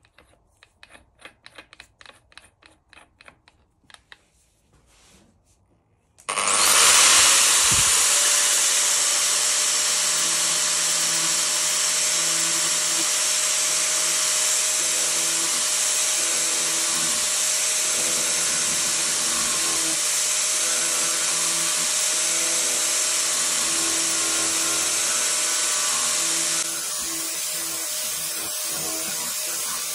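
Makita angle grinder fitted with a carving attachment, switched on about six seconds in and running steadily as it grinds into a wooden cylinder; the sound drops a little near the end. Before it starts, light clicks of the attachment being screwed onto the spindle.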